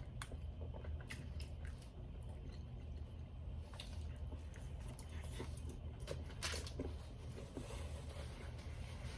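A person chewing food close to the microphone, with soft wet mouth clicks and a few brief louder bursts, over a steady low hum.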